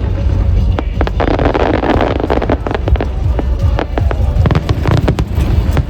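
Aerial fireworks going off: a run of sharp bangs and crackles over a steady low rumble, with a dense burst of crackling about a second in.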